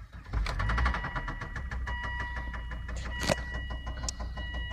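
2001 Volvo S60's turbocharged five-cylinder engine starting about a third of a second in and then running steadily with a rapid, even knock, which the owner puts down to a wrist pin or a rod knocking. A steady electronic warning chime from the dash sounds on and off over it.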